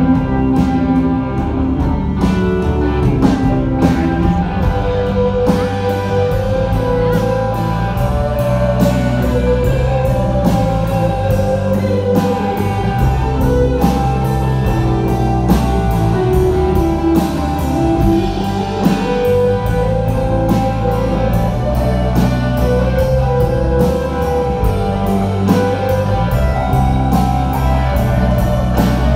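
Live rock band playing an instrumental passage on electric guitars, electric bass and drum kit. A sustained melody line slides up and down over a steady drum and cymbal beat.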